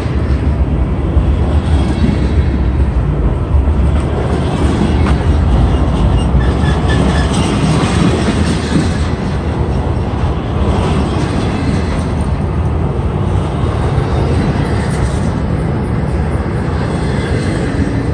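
A freight train of flatcars carrying semi-trailers passes close by: a loud, steady rumble of steel wheels rolling on the rails.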